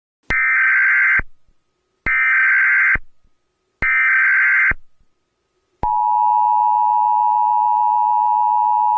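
Emergency Alert System signals: three harsh, buzzing SAME header data bursts, each about a second long and a second apart, then the steady two-tone EAS attention signal beginning about six seconds in.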